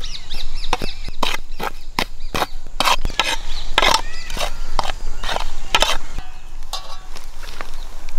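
Irregular clicking and knocking of a utensil in a mixing bowl, roughly two knocks a second, as spices are stirred into the batter. Birds chirp briefly near the start and about halfway through.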